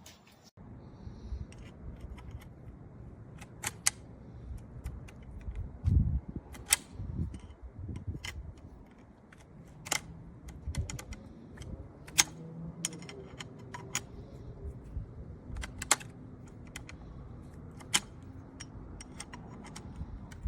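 Irregular clicks, taps and a few dull thumps of hard objects being handled close to the microphone, the loudest thump about six seconds in.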